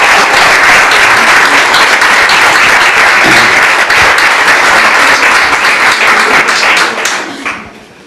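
Audience applauding, a dense steady clapping that dies away about seven seconds in.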